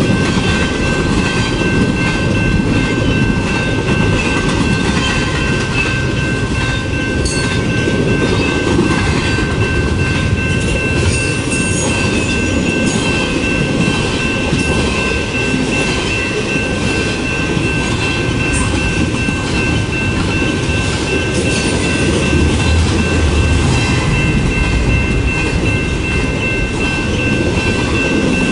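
Double-stack container freight train passing close by: a steady rumble and clatter of wheels on the rails as the stacked container cars roll through. A steady high-pitched tone runs over it.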